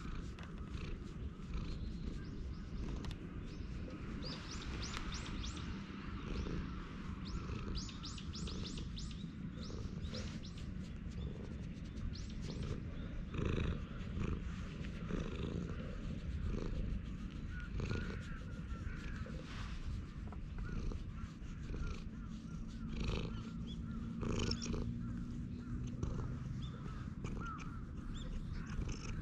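Cat purring steadily as it is stroked, a sign that it is content, with birds calling now and then in the background.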